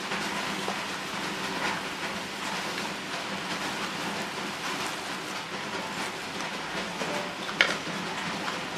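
Steady hissing background noise, with one sharp click near the end as the red plastic lid comes off a jar.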